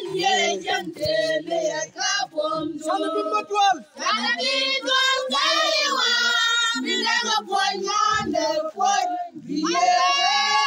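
A group of high-pitched women's voices singing together in a welcome song, with long held notes.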